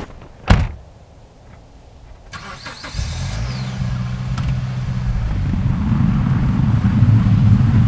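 A car door shuts with a single thud about half a second in. The SUV's engine starts about three seconds in and runs steadily, growing louder as the vehicle pulls away.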